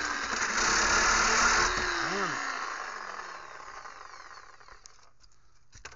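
Corded reciprocating saw cutting through a metal hurricane bracket. Less than two seconds in it stops cutting and the motor winds down, its pitch falling as it fades over the next few seconds.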